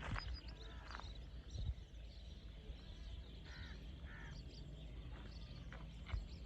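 Faint open-air ambience with scattered bird calls, including two short calls in quick succession about three and a half seconds in.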